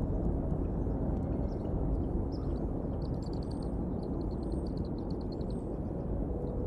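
A steady low rumbling noise, with faint high bird chirps over it: a quick run of short chirps, about seven a second, starts about three seconds in and lasts about two seconds, with a few thin high whistles nearby.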